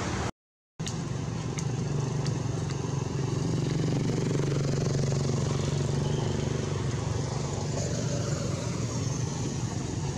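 Steady low hum of a running engine, swelling in the middle, over a constant outdoor noise. The sound cuts out completely for about half a second near the start.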